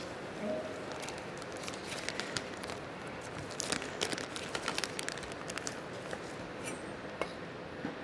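Scattered small clicks and soft rustles of food and utensils being handled on a stainless-steel worktop, over a steady room hiss; the clicks are busiest around the middle.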